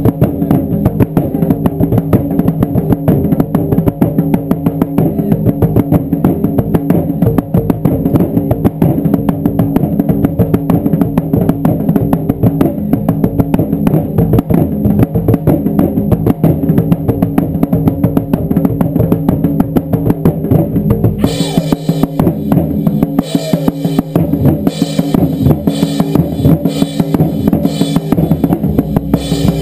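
Ensemble of taiko drums played in a loud, fast, unbroken beat. About 21 seconds in, the deep booming thins out and sharper, brighter strikes take over.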